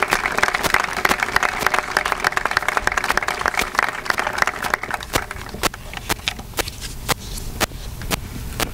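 Audience applauding: dense clapping that thins out about five seconds in to scattered single claps.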